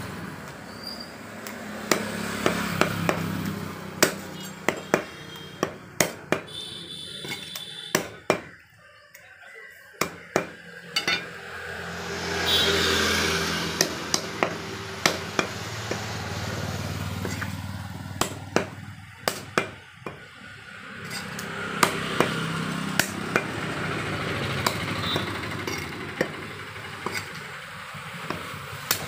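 Cleaver chopping rabbit meat and bone on a wooden log chopping block: repeated sharp chops in irregular runs, with short pauses between runs.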